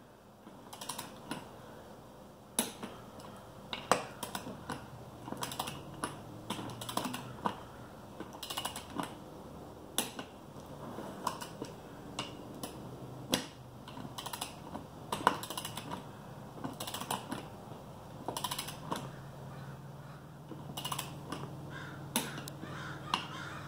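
Click-type torque wrench ratcheting on beadlock ring bolts, tightening each in turn toward 20 foot-pounds: irregular runs of sharp ratchet clicks with short pauses between bolts.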